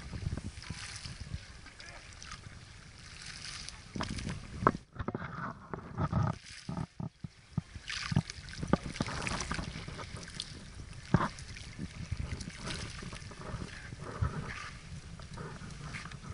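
Wind buffeting an outdoor microphone over open water, a continuous low rumble, with scattered sharp clicks and knocks from a fishing rod and reel being handled as a fish is played and lifted out.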